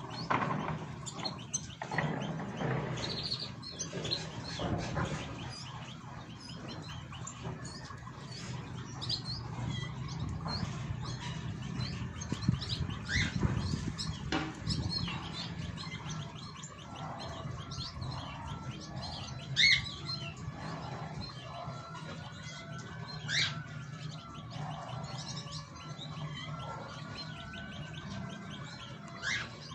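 Caged songbirds chirping and calling, with several short, sharp rising notes standing out at intervals over a steady low hum.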